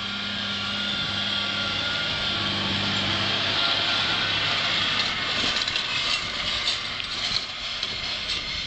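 Farm tractor running steadily as it pulls a self-loading forage wagon past, picking up cut grass. The engine hum is clearest for the first few seconds, then gives way to the clatter and knocks of the wagon's pickup and running gear as it passes close by.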